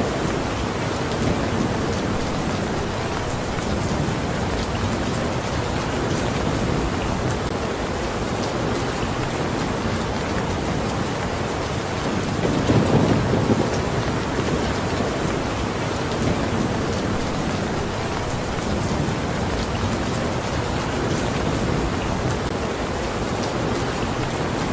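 Steady rain falling, with a brief low rumble of thunder swelling about halfway through.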